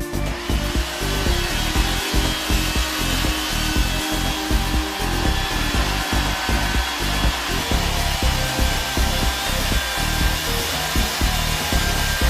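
A power tool running steadily on wood, starting suddenly and giving a continuous whirring rush, with background music beating underneath.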